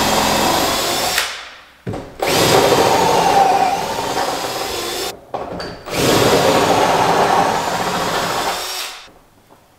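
Handheld power tool running in three bursts, each a few seconds long with a steady whine that winds down when released.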